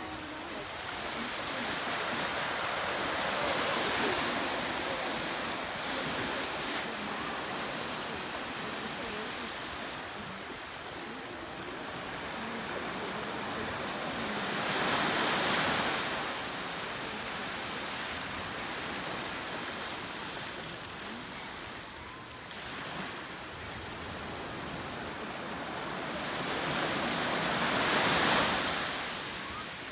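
Ocean surf breaking on a shore: a steady wash of water noise that swells as each wave breaks and then fades, three times over, about every twelve seconds.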